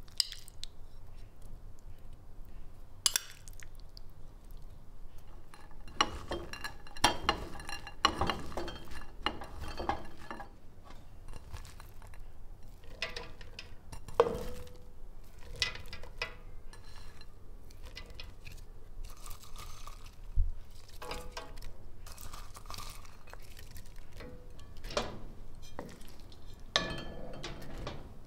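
Cookware being handled: ceramic bowls and a wooden spoon knocking and scraping against a metal cooking pot as rice, chickpeas and toppings are tipped and spooned into it. There are scattered clinks and knocks throughout, and one ringing knock about halfway.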